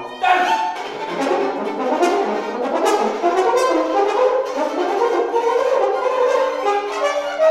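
Violin and French horn playing together in a duo sonata: a dense stream of quick, sharply attacked notes, settling into a few longer held notes near the end.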